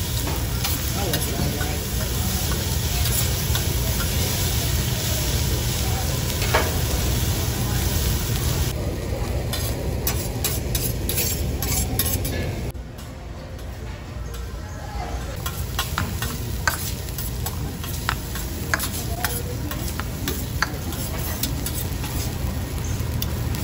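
Fried rice sizzling on a hibachi steel griddle while metal spatulas scrape and clack against the flat-top in quick, irregular taps. It goes quieter for a few seconds about halfway through.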